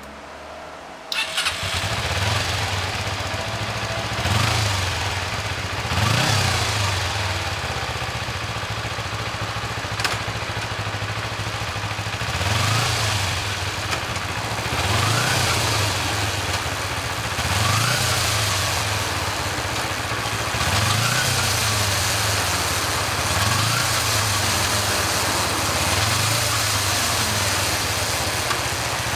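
Kawasaki GPZ250R's four-stroke parallel-twin engine starting about a second in, then idling with repeated throttle blips every two to three seconds, each rev rising and falling back to idle.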